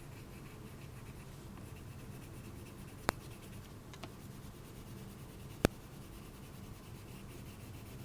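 Crayon scribbling on paper in small back-and-forth colouring strokes, with two sharp clicks, about three seconds in and again two and a half seconds later.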